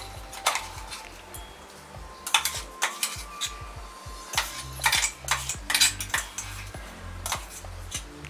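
A steel spoon scraping and clinking against the inside of a stainless-steel mixer-grinder jar as a thick chilli-garlic paste is scooped out, with a series of sharp scrapes and knocks throughout. Light background music underneath.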